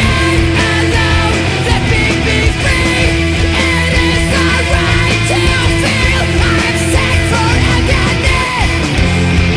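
Post-hardcore rock song: distorted electric guitars, bass and drums with yelled vocals over them.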